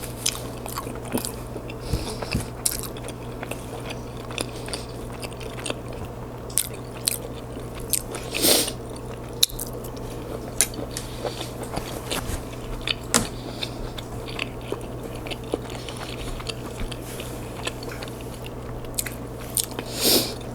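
Mouth sounds of eating homemade lasagna: chewing and wet lip smacking, a steady run of small clicks with two longer, louder smacks about eight seconds in and near the end.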